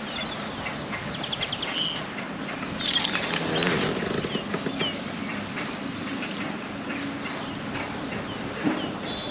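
Small birds chirping and twittering again and again over a steady background hiss, with a somewhat louder patch about three to four seconds in.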